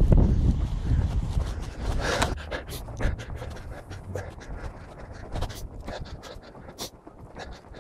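A person breathing hard while walking through deep snow, with wind buffeting the phone's microphone in the first couple of seconds, then scattered short crunches.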